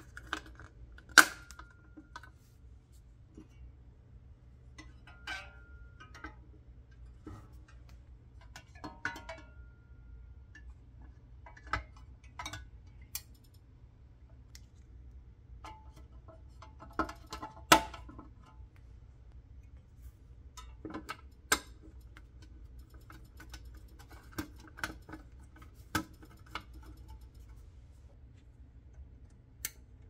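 Sparse clicks, taps and knocks as black plastic parts are pressed and fitted onto a painted pressed-steel toy bulldozer body. A few of the knocks leave a short ringing tone.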